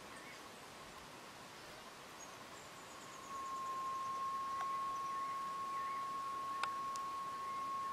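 A steady, high, pure tone that gets much louder about three seconds in, with faint bird chirps and a few sharp clicks around it.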